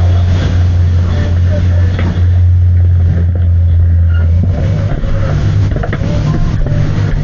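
Loud, steady low droning hum; about four and a half seconds in its pitch steps up to a somewhat higher drone. Faint wavering tones and noise sit over it.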